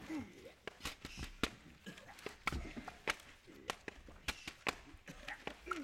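Newspapers handled as percussion: many sharp snaps and slaps of the paper at uneven spacing, with rustling between them. A couple of short falling voice sounds come near the start and near the end.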